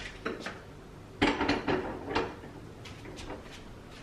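Kitchen handling clatter: a small enamel pot is set down on a gas stove's metal grate, with a few light taps, then a cluster of knocks and clatter about a second in.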